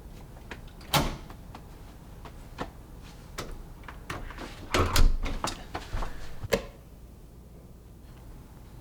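A series of short, sharp clicks and knocks from things being handled, the loudest a cluster about five seconds in, then a single knock a second and a half later.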